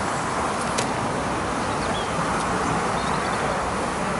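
Steady rushing outdoor background noise with no clear single source, and a faint click about a second in.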